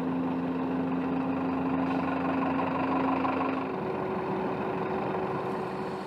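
Aircraft tow tractor's engine running steadily with a low hum. A little under four seconds in, the hum drops away and a higher steady tone takes over.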